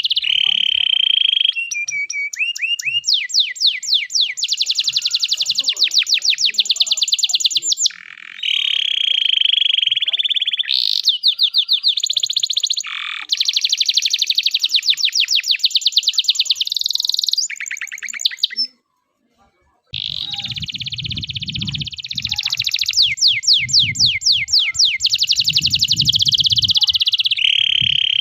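Male domestic canary singing a long song of rapid trills and buzzy rolls, with a brief full stop about two-thirds of the way through.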